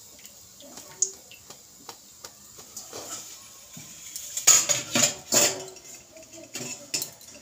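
Wire-mesh frying skimmer knocking against a metal kadai as a fried pitha is lifted out of the oil. A cluster of loud clanks comes about four and a half seconds in, with lighter clicks before and after.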